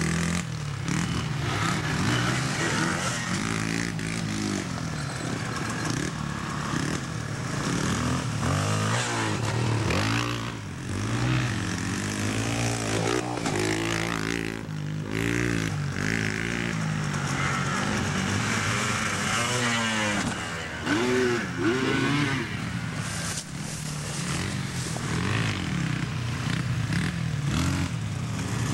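Dirt bike engines revving, their pitch rising and falling over and over as the riders open and close the throttle.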